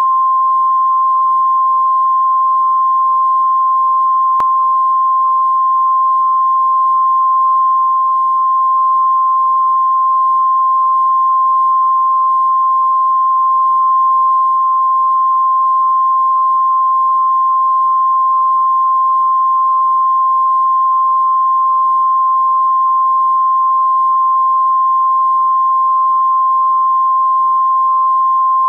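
Videotape reference test tone that goes with color bars: one steady, unbroken pitch held at a constant level.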